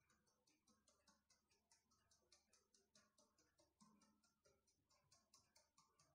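Very faint, quick, even ticking, about six ticks a second, from a stainless mesh sieve being tapped to sift flour onto batter.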